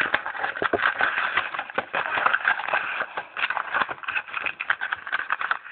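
Plastic wrapping on trading card packaging crinkling and tearing as it is opened: a dense, continuous run of crackles and rustles.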